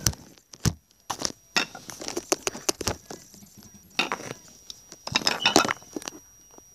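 Irregular clicking, clinking and scratchy rustling as felt-tip markers and paper are handled right by the microphone, with a denser run of clatter about five seconds in.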